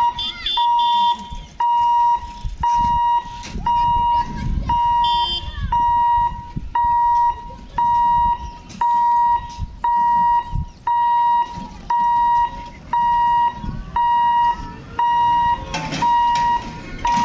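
Level-crossing warning hooter beeping steadily about once a second on a single high pitch, the signal that the boom barriers are closing for an approaching train.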